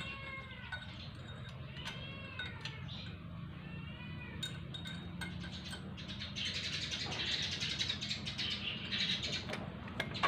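A cat meowing several times in short, rising-and-falling calls over a low steady hum. From about halfway on, light metallic clicks and rattling as hands fit parts to the motorcycle engine.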